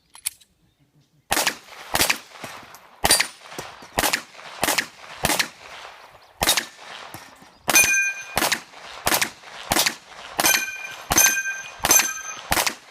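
Pistol firing a rapid string of about sixteen single shots, roughly one every half to two-thirds of a second, beginning about a second in. From about the middle on, many shots are followed by the brief ring of struck steel targets.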